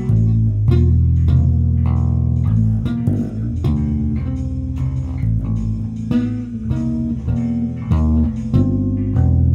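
Solo electric bass guitar played with two-hand tapping: a bass line on the low strings with shells of chords tapped above it, the notes starting sharply and ringing on under one another.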